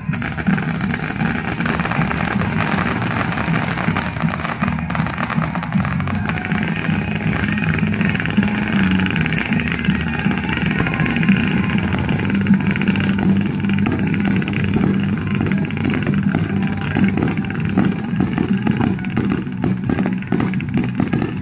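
Fireworks barrage: many effects firing at once make a continuous loud roaring whoosh, with more sharp crackling pops toward the end.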